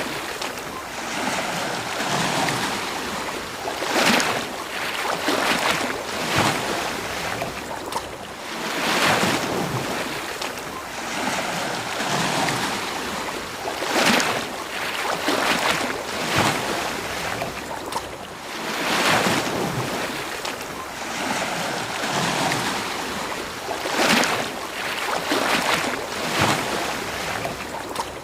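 Ocean surf breaking on a beach: a steady wash of waves, with a bigger wave surging in and crashing about every five seconds.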